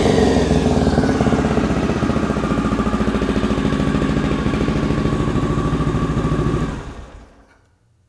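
Honda FT500 Ascot's single-cylinder four-stroke engine, warm, idling steadily with an even beat, then switched off and dying away about seven seconds in.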